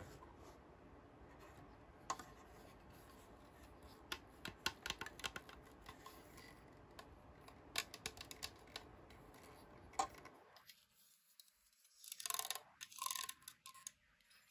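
Faint handling sounds from unboxing a toy bunk bed: quick clusters of light clicks and taps, then a short rustle near the end.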